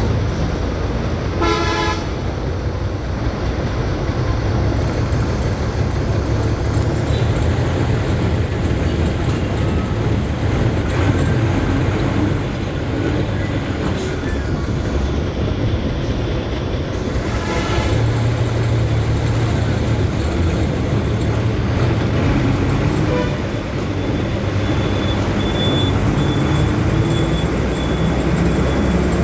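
Road traffic with a steady, heavy engine rumble, and vehicle horns tooting twice: briefly about a second and a half in, and again about seventeen seconds in.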